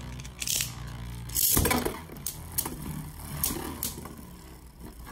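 Beyblade Burst spinning tops whirring in a plastic stadium and clashing several times. The loudest crash comes about one and a half seconds in, followed by lighter clicks as the defense-mode World Spriggan absorbs the attacker's hits.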